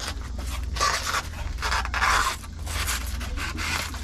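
Thin styrofoam scraping and rubbing against Reflectix foil insulation as it is pushed into the gap, in a series of short scrapes. The longest scrapes come about a second in and around two seconds.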